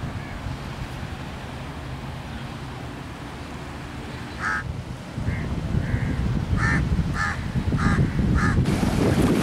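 A bird calling repeatedly: about seven short calls, roughly one every half-second to second, in the second half. They sit over a low rumbling noise that grows louder about halfway through.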